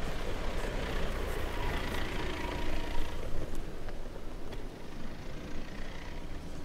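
A small van driving past close by and on across grass: engine running and tyres rolling, growing fainter after about three and a half seconds.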